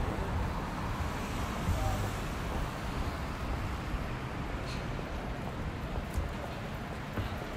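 City street ambience: a steady hum of traffic with faint voices of passers-by.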